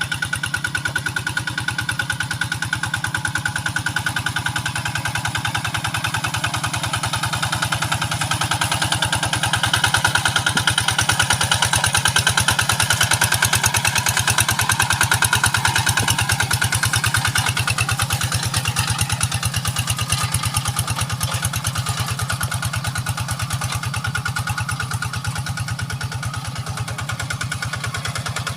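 Kubota RD85 single-cylinder diesel engine running steadily in a fast, even chug. It grows somewhat louder for several seconds in the middle.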